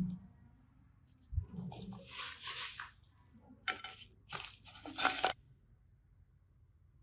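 Glitter slime being squished and worked by hand: a soft sticky squelch, then several sharp crackling pops, loudest about five seconds in.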